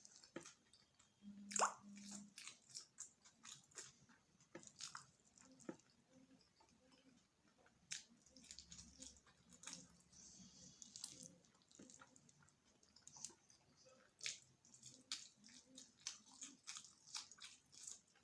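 A person chewing mouthfuls of cheese macaroni, with faint, irregular wet smacking and squishing mouth sounds.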